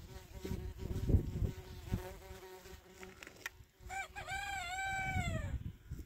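Flies buzzing steadily, with a low thump about a second in, then a rooster crowing once: a single call of under two seconds that rises, holds and falls away near the end.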